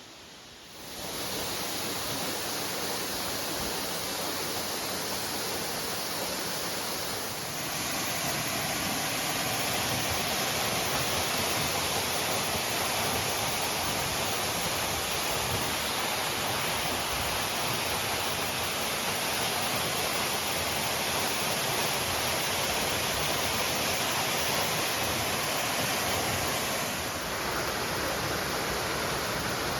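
Waterfall: a steady rush of falling water that fades in about a second in, shifting slightly in level twice.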